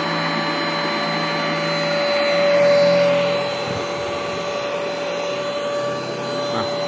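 Kurumi handheld UV dust-mite vacuum cleaner running with a steady whine. It gets briefly louder about three seconds in.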